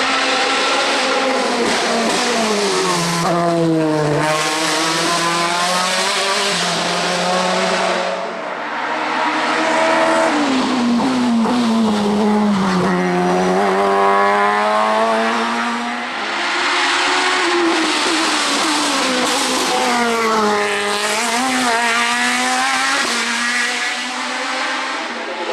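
Racing car engines at full throttle, the engine note climbing and then dropping sharply at each gear change, over and over. The sound dips briefly about eight and sixteen seconds in before another run picks up.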